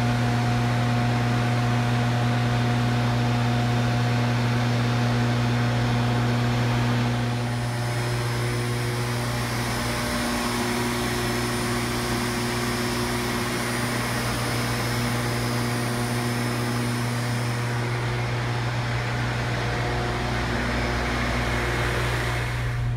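Steady drone of running power-plant machinery on the turbine floor: a strong low hum with several higher tones above it, over a broad rushing noise.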